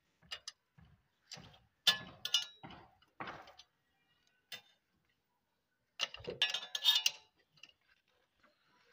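Metal spanner clicking and clinking on a motorcycle engine's oil drain bolt as the bolt is tightened back in after draining the oil. Short irregular knocks, with a louder cluster of clinks about six seconds in.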